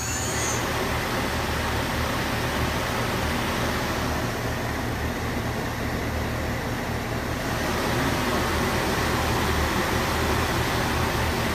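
Mazak Nexus QTN 250MSY CNC lathe's main spindle and chuck spinning at high speed, near 2,400 rpm, with a steady machine whir and hum. The noise grows louder about eight seconds in as the spindle speed is raised.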